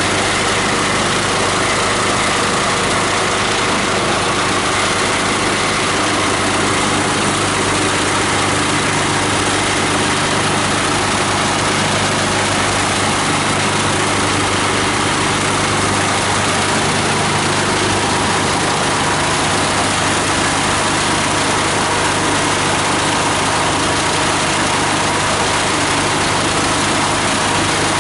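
18 HP diesel engine of a multi-blade plastic grinder running steadily, its low engine note under a constant hiss.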